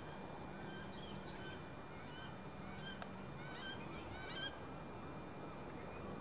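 A flock of geese honking: many short, overlapping calls, thickest and loudest about four seconds in, then dying away. They sound faint over a steady background hiss.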